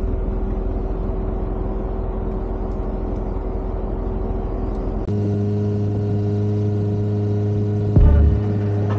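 A 4x4 truck's engine running steadily with a low rumble. About five seconds in, it gives way abruptly to background music of sustained chords, with heavy bass notes near the end.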